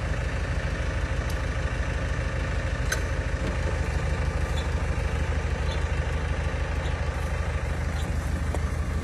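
A tractor engine running steadily at a low, even pitch, with a faint click about three seconds in.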